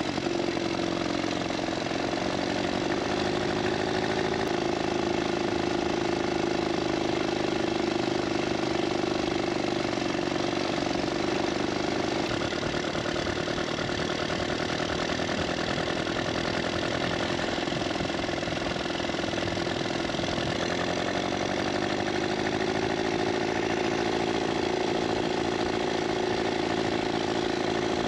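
Vintage Scott two-stroke twin motorcycle running steadily on the road under way, with a buzzy engine note that rises a little about four seconds in, eases back in the middle and picks up again near the end.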